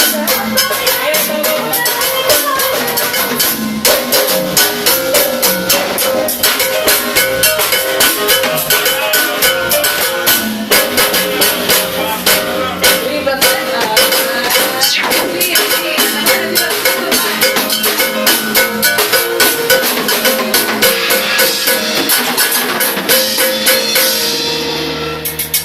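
Live band playing instrumental music at a soundcheck, a drum kit keeping a fast, steady beat under sustained melodic notes. The music dies away near the end.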